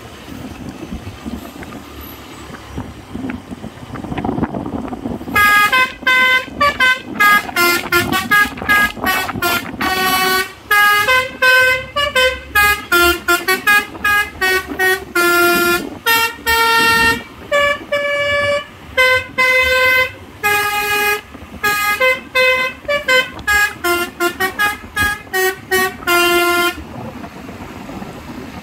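Cement mixer truck's Basuri telolet multi-tone horn playing a fast melody of short, loud tooting notes, starting about five seconds in and stopping near the end. Before it, only low engine and road rumble.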